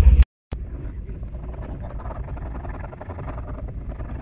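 Hand chisel paring wood, an irregular scraping over a steady low hum; the sound drops out completely for a moment near the start, where the shot changes.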